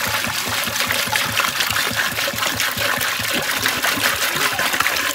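Water pouring and splashing in a steady, dense stream, cutting off suddenly near the end.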